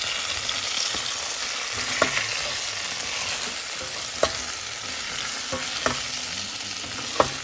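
Marinated chicken wings sizzling in hot oil in a stainless steel pot as a utensil stirs them, with several sharp clacks of the utensil against the pot.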